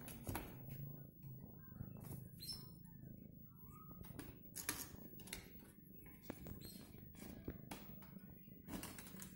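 A cat rubbing against the phone, its fur brushing and scraping the microphone in repeated sharp rustles over a low steady rumble.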